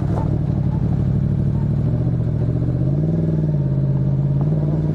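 Yamaha MT-10 SP's crossplane inline-four engine running under light throttle. The pitch dips and rises again about three seconds in, with a sharp knock just after the start.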